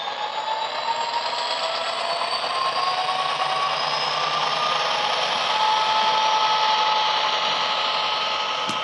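ESU LokSound recording of a Class 67 diesel locomotive's EMD two-stroke V12, played through the small speaker inside a Hornby Class 67 model. The engine note and the high turbo whine climb steadily as it powers up, then hold level. There is a single sharp click near the end.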